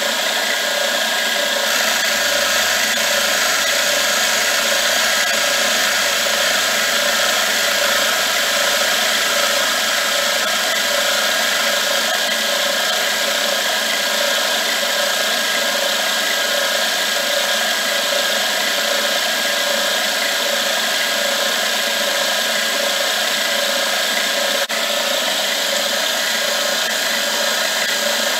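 Milling machine running steadily with its end mill cutting into the workpiece, a steady high whine over the cutting noise. A single short click sounds near the end.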